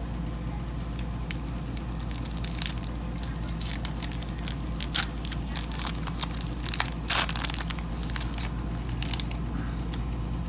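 A baseball card pack's wrapper being torn open and crinkled by hand: an irregular run of crackles and rips, the loudest about seven seconds in.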